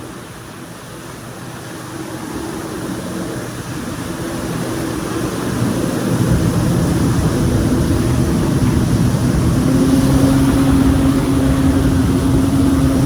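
Jet ski engine running, getting louder over the first six seconds and then holding steady with a strong hum.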